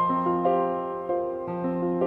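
Background piano music: a slow melody of single notes over held chords, each new note struck about every half second and left to fade.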